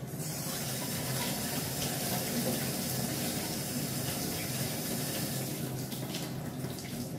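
Kitchen tap running into a stainless steel sink, the water splashing over a green papaya as it is scrubbed clean by hand. The bright hiss softens a little near the end.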